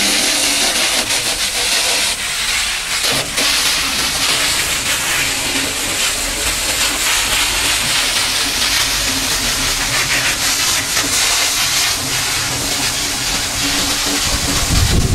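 High-pressure water jet from a pressure washer lance blasting dried mud off a truck's fuel tank and chassis: a steady, loud hiss of spray.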